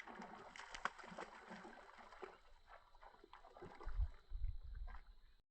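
Water splashing and sloshing in short irregular bursts, with a few heavy low thumps about four seconds in; the sound cuts off abruptly just before the end.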